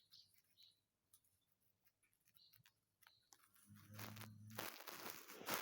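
A sleeping dachshund snoring: about four seconds in, a low rumbling snore gives way to a long breathy exhale lasting well over a second. Before it, a few faint short high squeaks.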